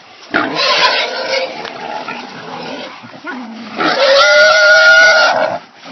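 Caught wild hog squealing while being held: one long harsh squeal in the first few seconds, then a second, louder and more piercing squeal near the end.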